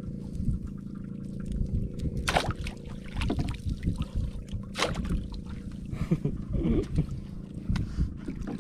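Seawater splashing and dripping as a square crab lift net is lowered over the side of a small boat, with two sharper splashes about two and a half and five seconds in. Under it runs a steady low rumble.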